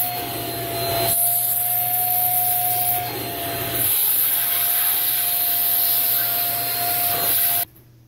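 Shark corded vacuum cleaner running with a steady motor whine, its crevice tool sucking along the carpet edge at the baseboard; the suction sound shifts as the nozzle moves and cuts off suddenly near the end.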